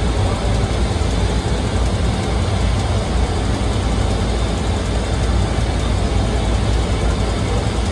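Steady flight-deck noise of a jet airliner in flight, an even rush with a heavy low rumble.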